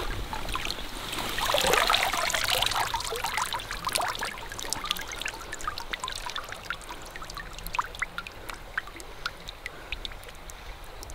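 Shallow river water splashing and trickling around a freshly landed king salmon held in the shallows, busier for the first few seconds, then thinning to scattered drips and small splashes.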